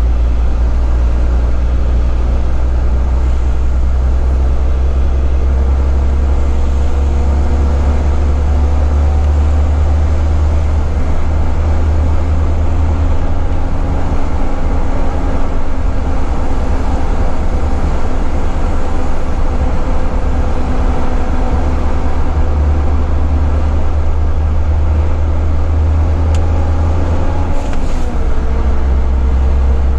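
Cab-interior drone of a Volvo FH12 480 heavy truck's diesel engine and road noise, a loud steady low rumble with faint engine tones drifting as it cruises. Near the end the engine note dips and settles at a new pitch.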